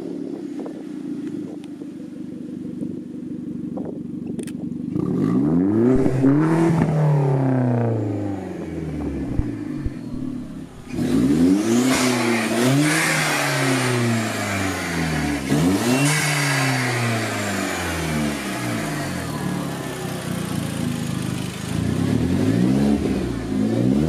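Hyundai Genesis Coupe's turbocharged four-cylinder engine idling, then blipped up and back down several times. From about halfway through, a loud hissing whoosh accompanies the revs, the sound of the blow-off valve venting boost.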